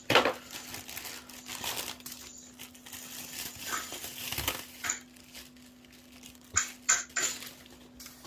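Smoke alarm packaging being handled and unpacked: crinkling plastic and cardboard with scattered clicks and knocks, a sharp knock at the start and a cluster of them near the end.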